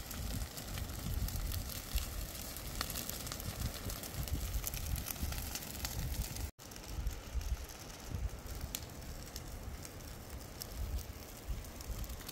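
Dry grass fire burning, with many small crackling pops over a low wind rumble on the microphone. The sound cuts out for an instant about halfway through.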